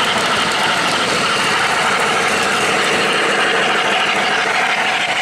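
O-gauge model steam locomotive and freight boxcars running past on three-rail track, with a steady mechanical running noise from the wheels and motor.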